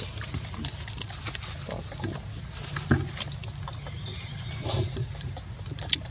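Monkeys calling with low grunting sounds, a brief high squeak about four seconds in, and scattered clicks and rustles.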